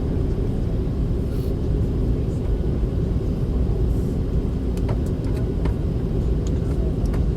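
Steady low rumble of a passenger jet's engines and airflow heard inside the cabin during the approach, with a few faint clicks about five seconds in and near the end.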